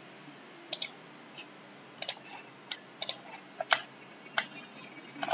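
Computer mouse clicking: about nine short, sharp clicks at irregular intervals, some in quick pairs like double-clicks.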